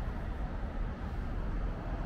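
Steady low rumble of city-street ambience, mostly road traffic.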